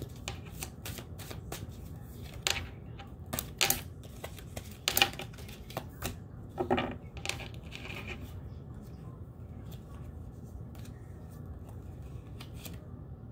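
Tarot cards being shuffled and riffled by hand, a run of crisp paper-card flicks and taps that grows sparser after the first half, over a steady low hum.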